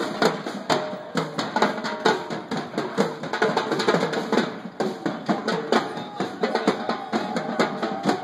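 Live percussion: several drummers playing a drum kit and a row of toms and snares together in a fast, steady, dense beat.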